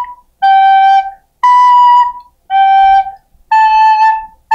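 Soprano recorder playing single tongued notes of about a second each: B, G, B, G, then A, with a second A starting near the end. It is the opening of the three-note beginner tune.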